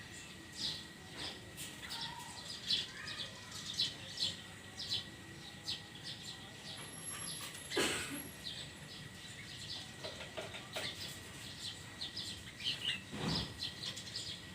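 Small birds chirping repeatedly in short high notes, with two sharp knocks, one about eight seconds in and one near the end.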